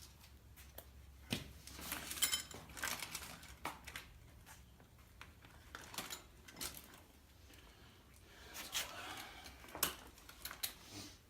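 Faint clinks, clicks and rattles of metal hand tools and parts being handled, irregular, with a few sharper knocks, loudest about two seconds in and near ten seconds in.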